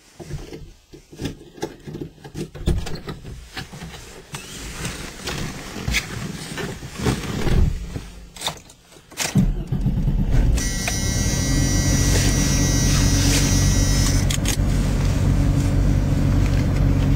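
Knocks and clicks as someone climbs into a car and settles at the wheel. About nine seconds in, loud guitar rock music starts and plays on steadily.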